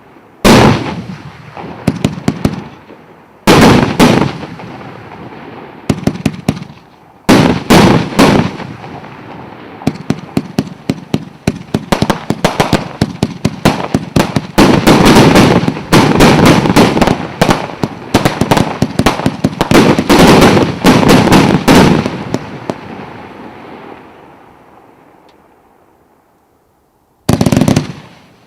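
Multi-shot firework barrage going off in rapid volleys of sharp cracks, each salvo followed by crackling bursts. The shots run densely through the middle, then die away to a quiet tail before a new salvo starts near the end.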